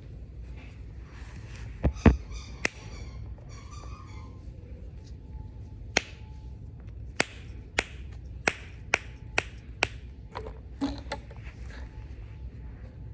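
Fidget toys being clicked and popped by hand: about a dozen sharp snaps, a quick cluster of three about two seconds in, then a run of seven roughly half a second apart, and two more near the end.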